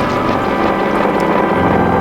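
Background music with long held tones, the chord shifting about half a second in and again near the end.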